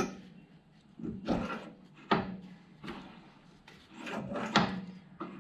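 Steel tailstock die holder sliding and turning on the freshly turned half-inch shaft of a lathe-held arbor: about five short metal-on-metal scrapes and knocks as its fit is tried.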